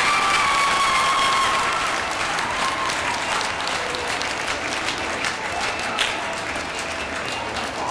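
A large crowd applauding steadily, the clapping easing slightly over the seconds. A single held, high-pitched call rides over the applause at the start and fades out within about two seconds.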